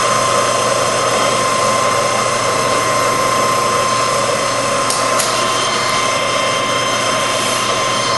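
Lodge & Shipley 24 x 78 engine lathe running under its 15 HP main motor at a low spindle speed: a steady mechanical hum with a high whine. Two brief clicks about five seconds in.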